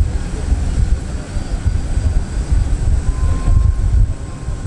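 Jet aircraft engine noise on an airport apron: a steady high whine over a loud, gusty low rumble, with wind buffeting the microphone.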